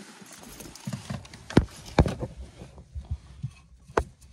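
Knocks and clicks of something being handled: three sharp ones, about a second and a half, two seconds and four seconds in, among softer thumps.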